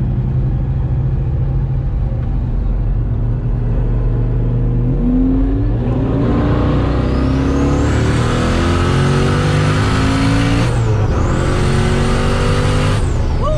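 Twin-turbo LSX 427 V8 of a C6 Corvette Z06 heard from inside the cabin. It cruises steadily, then about five seconds in goes to full throttle, with the revs climbing and a high whine rising alongside. There is a gear change just before eleven seconds in, a second climb, and a lift off the throttle near the end.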